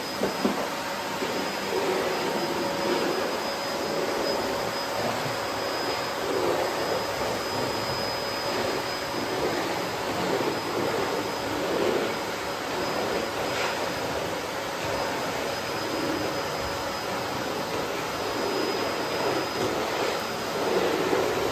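Vacuum cleaner running steadily, with a thin high whine over its airflow and a lower rush that swells and fades every second or two.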